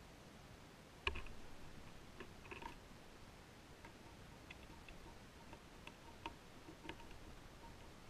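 Faint, scattered ticks and light taps from tits at a feeding table, landing and pecking at netted fat balls, with one sharper knock about a second in.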